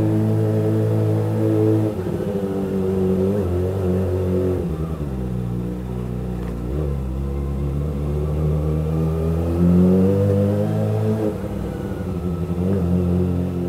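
Motorcycle engine accelerating through the gears while riding. Its pitch climbs and then drops at each gear change, several times over.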